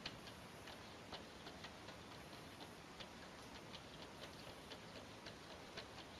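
Faint light clicks and taps, roughly three a second at uneven spacing: a cat's claws and paws striking the glass pane of a door.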